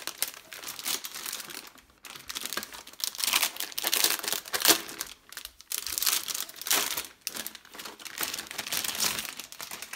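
Packaging crinkling and rustling in irregular bursts as it is handled and pulled off a new keyboard.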